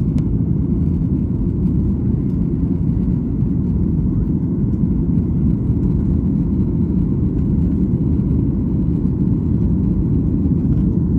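Cabin noise of a Boeing 737 climbing just after takeoff: the jet engines at takeoff power and the rush of air, a steady low rumble.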